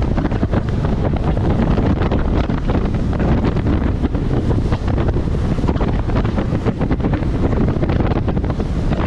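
Strong wind buffeting the microphone aboard a Buster Magnum aluminium motorboat running through choppy waves, a loud steady rumble with constant gusty crackle over the boat and water noise.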